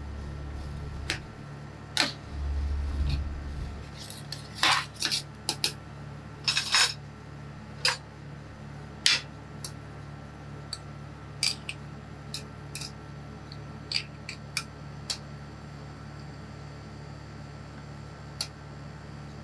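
Clicks, taps and scrapes of stainless utensils on a steel ice-cream cold plate: a spatula scraping up ice cream rolls, a glass cup set down on the plate, and tongs tapping as the rolls are lifted into the glass. The taps are densest between about four and seven seconds in, and a steady low hum runs underneath.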